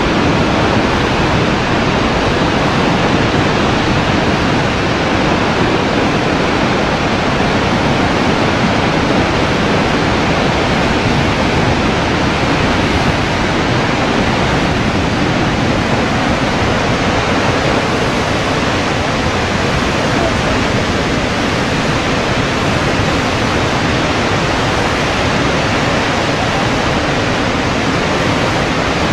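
Horseshoe Falls at Niagara thundering: a loud, steady roar of falling water with no breaks.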